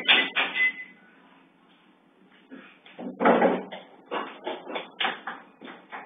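Clattering knocks and bangs in bursts, one cluster at the start and a longer run from about three seconds in, heard through a security camera's microphone.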